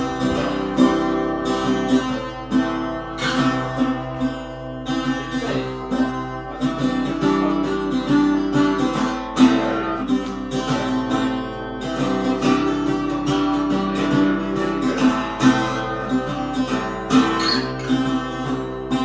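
Acoustic guitar being strummed, one chord after another with the notes ringing on.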